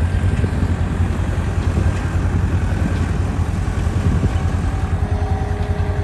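Farm tractor's diesel engine running steadily, with a fast low pulsing. A steady whining tone joins near the end.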